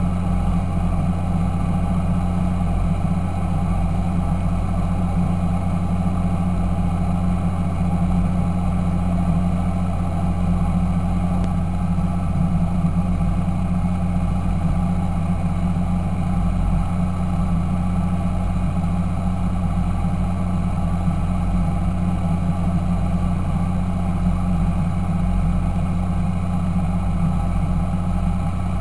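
Fendt Favorit 926 tractor's diesel engine running steadily at a constant speed, with no revving.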